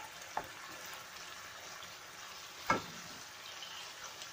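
Chicken adobo sizzling steadily in a pan, with a couple of sharp knocks of a utensil against the pan, the loudest about two-thirds of the way through.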